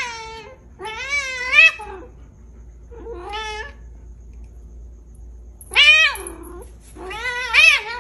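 A cat meowing in four drawn-out calls whose pitch wavers up and down, the loudest about six seconds in.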